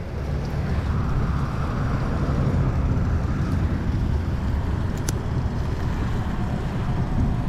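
Steady low outdoor rumble, with a single sharp click about five seconds in.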